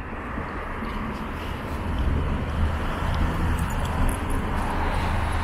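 Outdoor street ambience: traffic running steadily under a low, even rumble.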